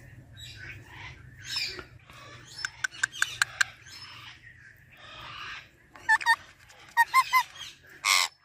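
Pet green parrot making a string of short chirps, clicks and squawks, with louder pitched squawks about six and seven seconds in and a loud harsh screech just before the end.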